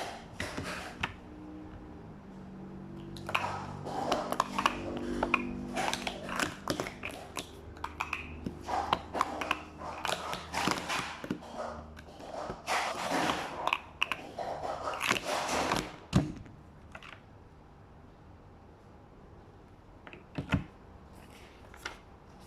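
Plastic sport-stacking cups clacking and clattering in fast runs as they are stacked up and brought down, for about thirteen seconds, then a couple of single clicks.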